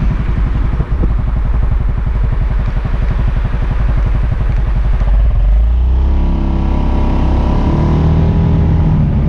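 Suzuki Burgman AN400 maxi-scooter's single-cylinder four-stroke engine, heard from the bike, low and evenly pulsing at slow speed. From about six seconds in it settles into a steady drone as the scooter pulls away.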